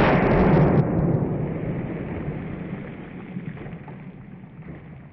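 A single 5.56 mm rifle shot from a 16-inch-barrel Ruger AR-15 carbine firing M855 ball, heard right at the start, its report rolling away in a long echo that fades over several seconds.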